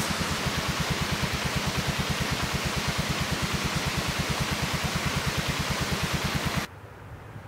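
Polaris six-wheeled ATV engine idling: an even, rapid putter of about a dozen beats a second over a hiss. It drops away sharply near the end.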